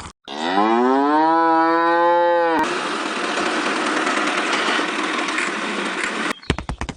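A cow mooing: one long moo that rises in pitch and then holds for about two seconds. After it comes a few seconds of steady rushing noise, then a quick run of clicks near the end.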